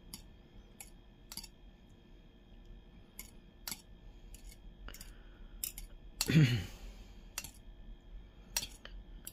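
Metal fork clinking against a ceramic bowl while stirring beaten eggs, a scattering of sharp, irregular taps. About six seconds in, a short voiced sound from the person, falling in pitch, is the loudest moment.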